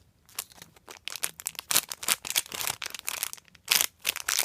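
Irregular rustling and crinkling from something being handled, with a few sharper crackles near the end.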